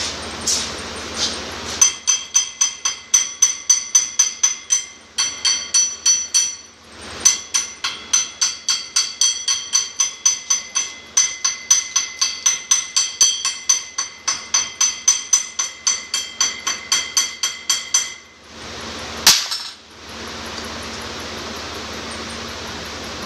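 A hammer striking metal in fast repeated blows, about three a second, each blow ringing with a bright metallic tone. The blows run on for about sixteen seconds with two short breaks, followed by one louder single bang, over a steady low hum.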